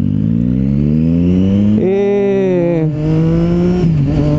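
Triumph Street Triple R's three-cylinder motorcycle engine accelerating, its pitch rising steadily, louder and harsher for about a second from near the two-second mark. It drops in pitch at upshifts about three and four seconds in, climbing again after each.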